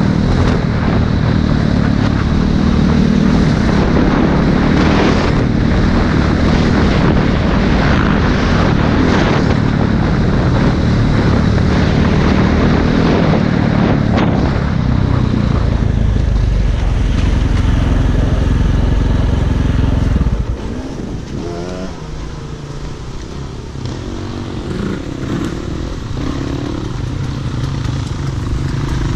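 Dirt bike engine running under throttle on a dirt trail, heard from the rider's own bike. About twenty seconds in it drops to a quieter, lower note as the throttle is eased, then picks up again with short rises and falls in pitch.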